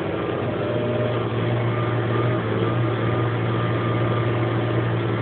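SAME Laser 150 tractor's air-cooled six-cylinder diesel engine running steadily under load while pulling a disc harrow through stubble. Its low drone steps up slightly about a second in.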